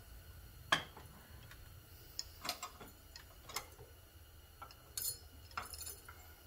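Scattered metal clicks and clinks as a C6 transmission clutch drum is set into a bench snap press and the press arm is positioned over the spring retainer, the loudest click about a second in.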